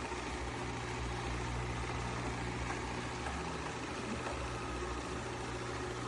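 Shark AI Ultra robot vacuum running, a steady motor hum with an even rush of suction noise.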